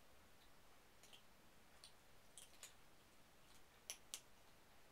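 Near silence broken by faint, scattered clicks from kittens moving about in a wire crate, two sharper clicks close together about four seconds in.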